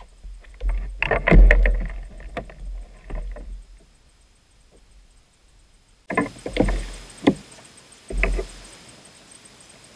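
Knocks and clicks of a fishing rod, reel and tackle being handled aboard a kayak, with a low rumble under them. They come in two bunches, one over the first few seconds and a shorter one past the middle.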